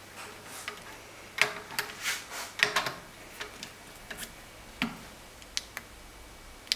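Irregular small metallic clicks and taps of a digital dial indicator and its holder being handled and fitted onto a clamped Bosch common rail injector, set up to measure the ball valve stroke.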